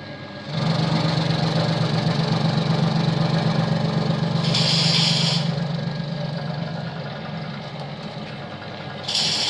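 Electric vegetable cutting machine chopping leafy green stalks. It gets much louder about half a second in as the greens go through the blades, then runs with a steady hum and a very fast chopping rhythm that eases off gradually. Two short high-pitched bursts come near the middle and near the end.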